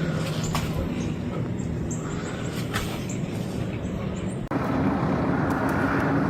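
Steady vehicle engine hum with road noise. About four and a half seconds in it cuts abruptly to a different, steady engine hum with a rushing noise.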